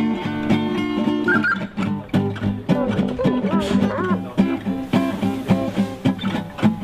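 Music played on plucked and strummed acoustic guitar, with dense picked notes.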